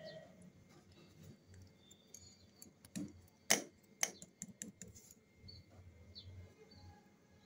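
A lump of soft modelling clay tapped and pressed against a hard work board by hand: a short cluster of sharp taps around the middle, one much louder than the rest, among soft handling sounds.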